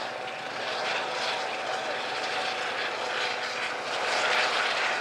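Steady rushing noise with a faint steady hum underneath, getting a little louder about four seconds in.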